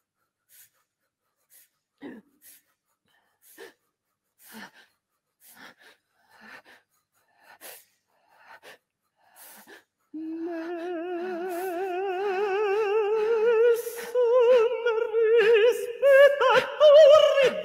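A woman's voice in an experimental vocal performance. First come scattered short mouth clicks and breaths, about one a second. About ten seconds in, a long wavering vocal note begins, slowly rising in pitch and growing louder, and it breaks up near the end.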